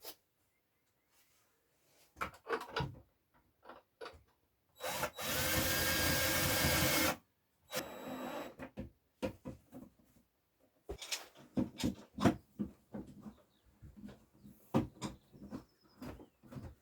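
Power drill running steadily for about two seconds, then a short weaker second burst, amid scattered knocks and clatter.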